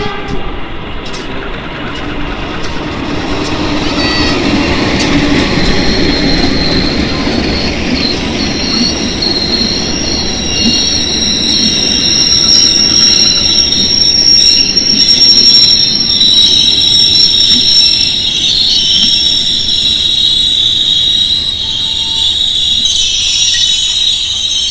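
A diesel locomotive-hauled passenger train passes close by. The locomotive's engine rumble is strongest in the first several seconds, then the carriages roll past with a steady, high-pitched steel wheel squeal.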